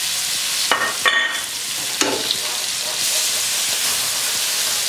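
Sliced onions sizzling as they hit hot olive oil with cumin seeds in a metal kadai: a steady frying hiss, with a couple of short knocks about one and two seconds in.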